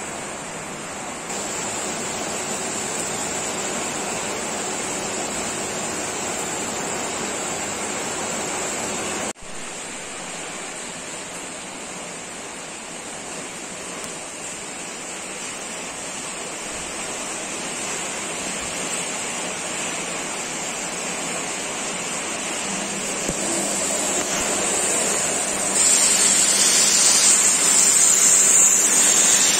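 Sharp EC-8305 vacuum cleaner running: a steady rushing noise with a high whine on top. It dips sharply for an instant about nine seconds in and gets louder near the end.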